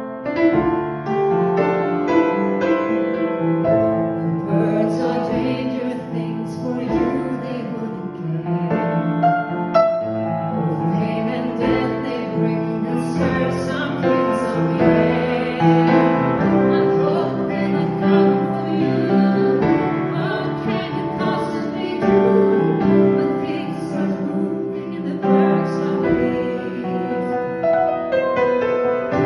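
Piano playing with a sung vocal line over it: a slow song for piano and voice.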